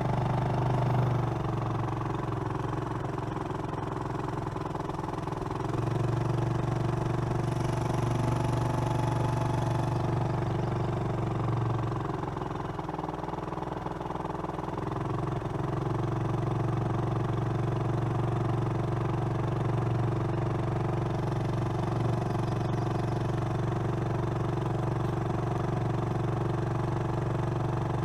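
Vehicle engine running steadily at low revs while crawling slowly over a rough trail, easing off briefly about halfway through.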